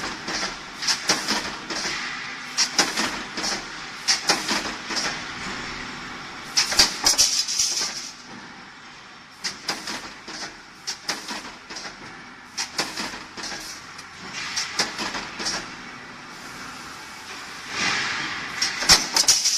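CNC flat-bar and channel punching, marking and shearing line at work: repeated sharp clicks and knocks in clusters over a steady hiss.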